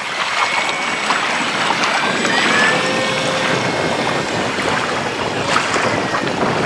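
Gusty wind rushing over the microphone, with the thin whine of the E-flite Carbon-Z Cub's electric motor and propeller sliding in pitch as the model floatplane passes low and climbs away.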